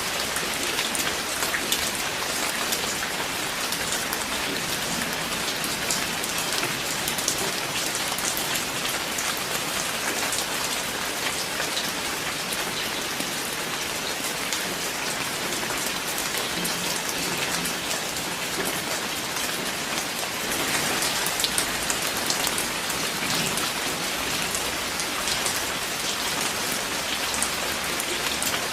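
Steady rain falling, a constant hiss full of many small drop hits.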